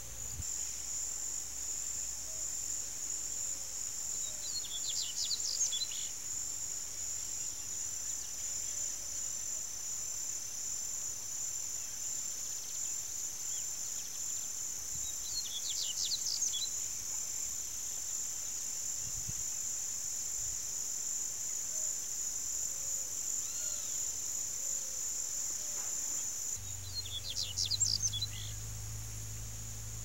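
Insects keeping up a steady high-pitched trilling chorus, with a small bird singing three short, rapid phrases about ten seconds apart.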